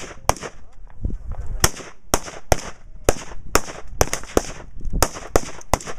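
Rapid, irregular rifle fire from several shooters on a firing line: about a dozen sharp shots in quick succession, each followed by a short echo.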